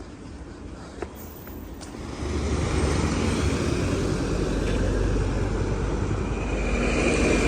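A road vehicle's engine and road noise close by, swelling up about two seconds in and then holding steady. A single click comes shortly before.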